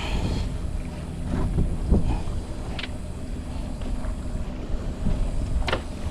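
Wind buffeting the microphone as a steady low rumble, with a few sharp knocks, the clearest about three and about six seconds in.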